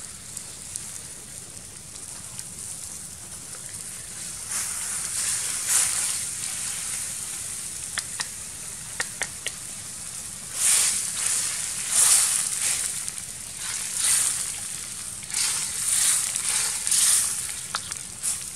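Frogs frying in hot oil in a steel wok over a wood fire: sizzling builds after they go in, then flares in repeated loud surges as they are stirred, with a few sharp clicks around the middle.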